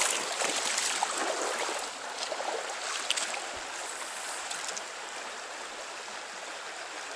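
Flowing stream water, a steady rushing and trickling, a little louder in the first two seconds, then even.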